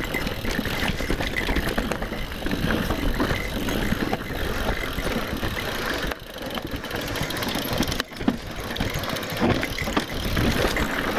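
Mountain bike riding down a rough trail: tyres on dirt and rock, with a steady clatter from the chain and frame and a low rumble of wind on the microphone.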